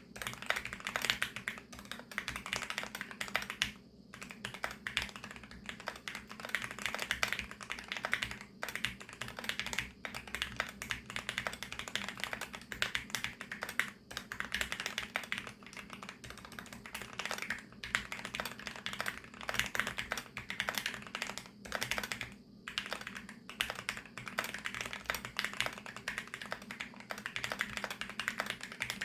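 Fast continuous typing on a VARO V68+ 65% mechanical keyboard with VARO Panda linear switches lubricated with Krytox 205, a dense run of key clicks with brief pauses every few seconds.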